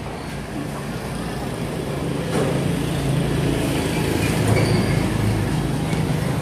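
Small motor scooter engine running steadily with a low hum that grows slightly louder, and a single click about two seconds in.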